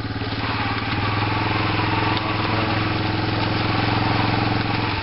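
Small off-road engine running steadily, picking up a little about a second in and easing off right at the end.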